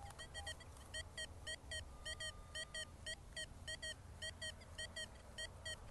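XP Deus II metal detector's target tone: short, high beeps repeating in quick pairs several times a second as the coil is swept back and forth over a buried target, the repeatable response of a diggable signal. One tone is held for about a second a little after two seconds in.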